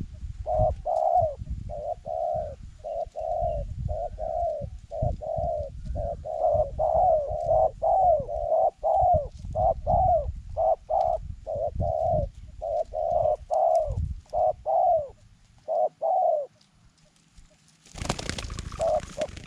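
Zebra dove cooing: a long run of short, quick coo notes, about two a second, that stops about 16 seconds in. A low rumble runs underneath, and a burst of noise comes near the end.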